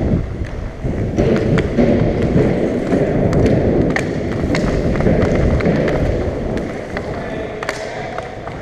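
Hockey skater's movement heard close up: a loud continuous rumble of striding and air across a worn microphone, with sharp clicks and taps of sticks against the puck and the rink surface scattered throughout.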